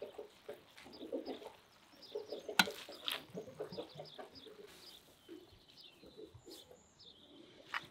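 Domestic birds, such as hens or pigeons, calling in short repeated notes, with occasional high chirps and a single sharp knock about two and a half seconds in.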